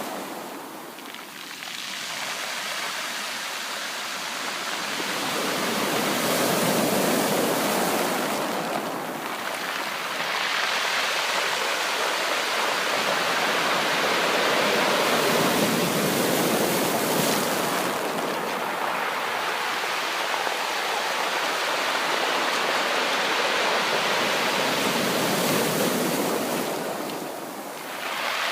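Sea waves breaking and washing up on a beach, a continuous hiss of surf that swells and ebbs every few seconds.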